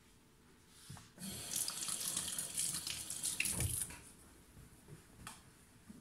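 A kitchen tap running into a sink for about three seconds, starting about a second in and shut off just before the fourth second, with a low bump shortly before it stops.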